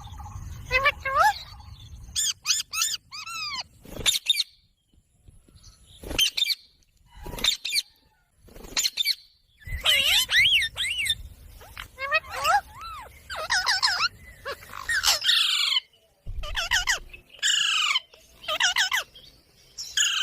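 Ringneck parrot (rose-ringed parakeet) calling: runs of quick, shrill squawks that sweep up and down in pitch, in bursts with short pauses between them.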